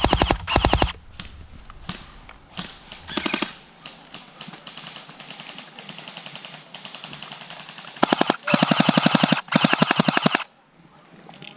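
Electric airsoft guns firing on full auto: rapid strings of evenly spaced clicking shots in short bursts, fainter firing in the middle, then three longer, louder bursts near the end.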